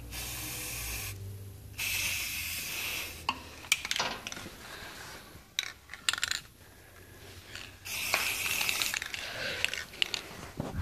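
Objects being handled and shifted about: two spells of rustling with a few sharp metallic clinks and clicks in between.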